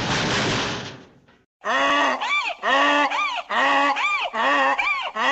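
Cartoon donkey braying effect: a fast run of pitched hee-haw calls, each rising and falling, about two a second, starting about one and a half seconds in. Before it, a loud noisy rush fades out.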